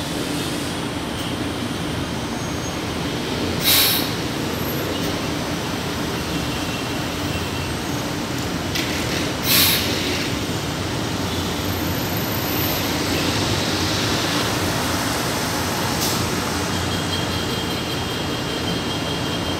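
São Paulo Metro Line 1 train at the platform, giving a steady rumble and hum. Two short, loud bursts of noise come about 4 and 10 seconds in.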